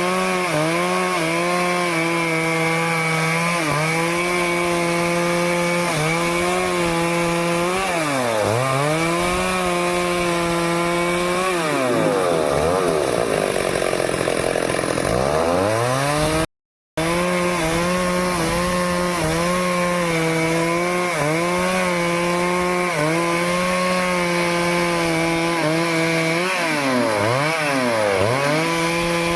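Stihl chainsaw running at high revs while cutting teak wood, its engine note dipping sharply and climbing back three times, once for several seconds. About halfway through there is a brief dead break in the sound.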